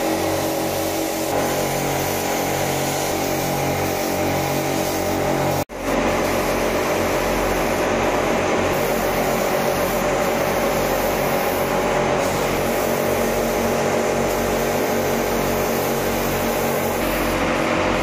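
Compressed-air paint spray guns hissing steadily over the hum of a running air compressor motor. The sound drops out for an instant about six seconds in, then carries on unchanged.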